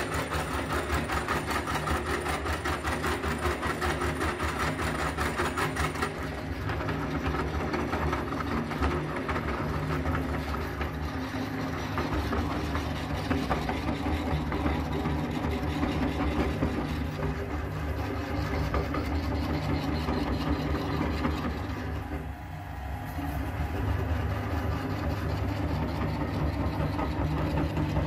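Cast-metal meat grinder, driven by a belt-wheel flywheel, running steadily as it grinds a bar of soap into powder, with a fast rattling clatter. It briefly quietens about 22 seconds in.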